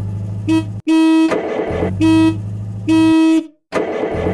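Car horn honking in a series of blasts at one steady pitch: a short toot, then three longer honks about a second apart. A low steady hum runs underneath.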